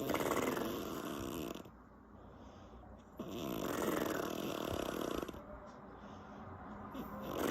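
A woman snoring, her lips flapping with each breath. Two snores of about two seconds each, with a third starting near the end.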